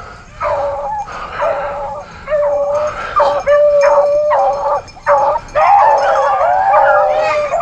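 A pack of rabbit hounds baying on a rabbit's trail, with repeated drawn-out bawls. More dogs join in during the second half, until several voices overlap.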